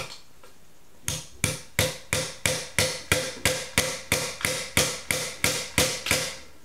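The small hammer head of a Kelvin .23 multi-tool hammering a nail into a wooden plank. There are about seventeen evenly paced blows, roughly three a second, each with a short ring. They begin about a second in and stop shortly before the end.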